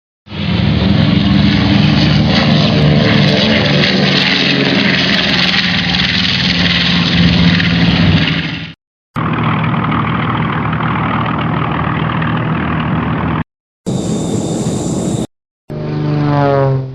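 A run of separate airplane engine sound effects, cut one after another with short silences between them. First comes a long aircraft engine drone whose pitch slides downward partway through, then a steadier engine drone, then a short burst with a high whine, and finally an engine whose pitch climbs.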